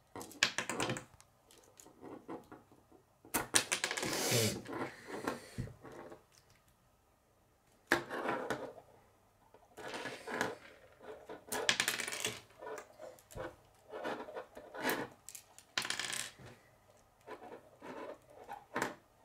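Hard plastic K'nex pieces clicking and rattling against each other as hands fit rods, connectors and gears into a whisk mechanism, in about seven short clusters of clicks with pauses between.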